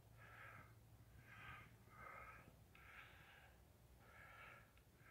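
Faint breathing of the climber close to the microphone, a breath about every second.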